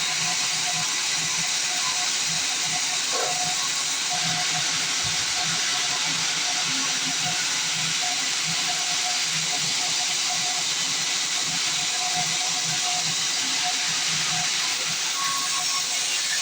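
Band sawmill blade cutting through a log: a steady, even hiss of sawing.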